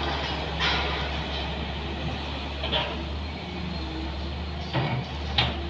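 Wheeled excavator's diesel engine running steadily as the machine swings and digs, with a few short knocks from the bucket and arm working in the soil.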